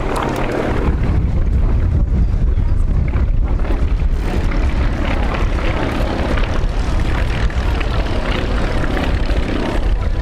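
Yak-50's nine-cylinder Vedeneyev M-14P radial engine and propeller, a steady loud drone from the aerobatic aircraft in flight.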